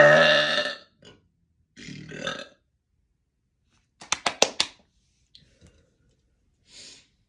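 A loud, deep burp that tails off within the first second. It is followed by quieter short sounds: a softer throaty noise about two seconds in, and a quick run of about five sharp clicks around four seconds in.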